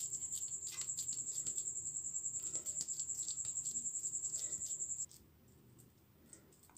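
Hands pressing and patting spiced minced beef into a flat patty, giving faint soft pats. Under them runs a steady, high-pitched pulsing tone that cuts off suddenly about five seconds in.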